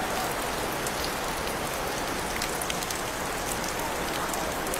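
Steady rain falling, an even hiss with scattered small drop ticks.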